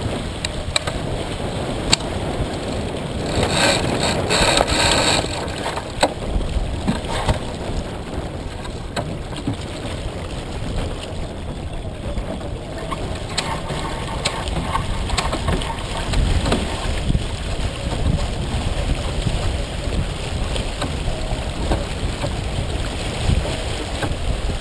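Water rushing and splashing along the hull of a heeled sailboat under sail, with wind buffeting the microphone as a low rumble. A brighter spell of hissing spray comes about three to five seconds in.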